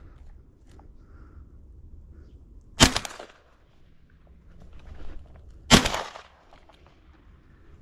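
Two shotgun shots about three seconds apart, each a sharp report with a short echo trailing off.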